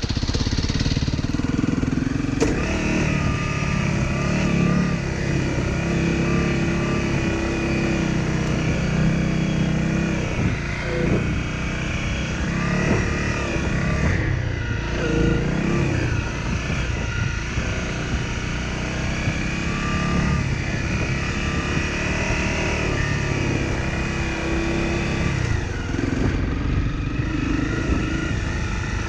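Honda CRF250L's single-cylinder four-stroke engine running under way, its pitch rising and falling again and again as the throttle is opened and closed. A single sharp knock comes about two and a half seconds in.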